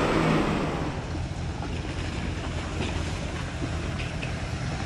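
Steady low rumble of an off-road vehicle rolling slowly along a gravel dirt trail, with wind noise on the microphone and a few faint ticks.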